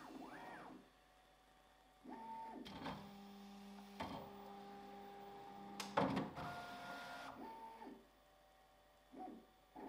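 Bambu Lab X1 Carbon 3D printer's stepper motors whining through a series of moves at its first power-up. Each move rises in pitch, holds a steady tone and falls away, with quiet gaps between. A sharp knock comes about six seconds in, the loudest moment, and a smaller one comes about four seconds in.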